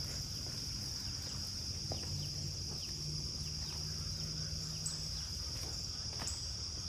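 Crickets trilling in a steady, unbroken high-pitched chorus, with a few short falling chirps and a low steady hum underneath.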